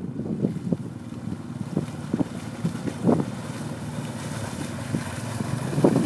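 Off-road utility vehicle's engine running steadily as it drives up a shallow stream, water splashing and churning around its wheels, with wind noise on the microphone. It gets louder near the end as the vehicle comes close.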